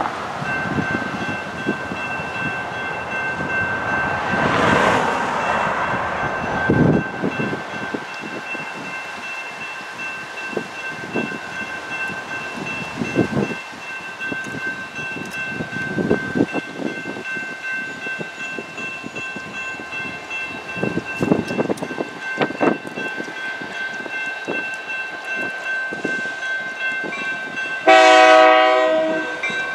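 A General Signals Type 2 electronic crossing bell rings steadily as the grade-crossing signals activate, starting about half a second in. Near the end a diesel freight locomotive's horn starts one loud, chord-like blast that carries on past the end.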